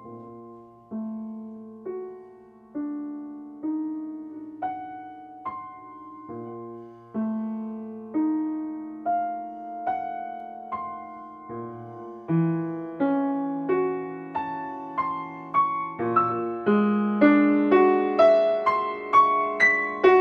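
Solo piano playing slow notes and chords, struck about once a second and each left to ring and fade. About halfway through, the notes come faster and louder, a couple a second by the end.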